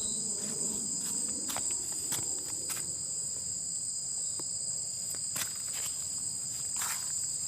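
Steady high-pitched chorus of insects, trilling without a break on two pitches, with scattered light clicks and rustles over it.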